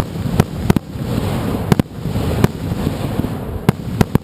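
Consumer fireworks going off in quick succession: a continuous crackling rumble broken by sharp bangs at irregular intervals, about two a second.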